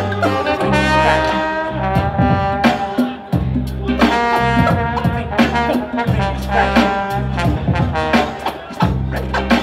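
Live hip hop/groove band playing an instrumental passage: trombone and saxophone play held melodic lines over a heavy bass line and steady drum hits.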